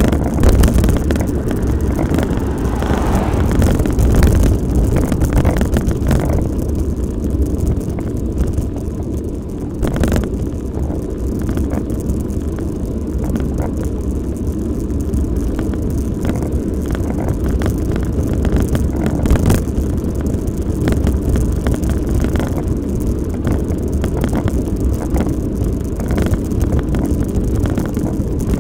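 Steady low wind rumble on the microphone of a camera riding along on a bicycle, mixed with the noise of tyres on tarmac. A few sharp knocks come from bumps in the road surface.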